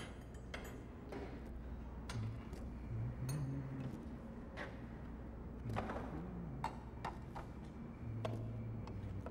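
Metal hand tools clinking and clattering irregularly as someone rummages through them on a workbench.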